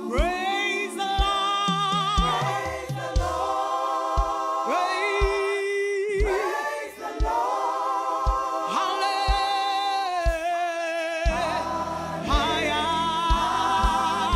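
Gospel worship music: sung voices holding long notes with vibrato over a steady kick-drum beat of about two strokes a second, with a bass line joining about eleven seconds in.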